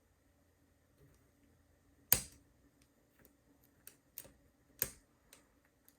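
Sharp metallic clicks and ticks of a hook pick and tension wrench working the pin-tumbler core of a Brinks R60 disc padlock, as pins set or drop; one loud click about two seconds in, another near the end, and several fainter ticks between.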